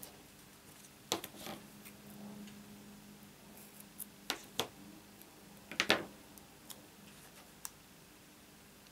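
Scissors snipping a length of double-sided tear and tape off its roll: a few short, sharp snips and clicks, the loudest near the six-second mark, among quieter handling of card and tape.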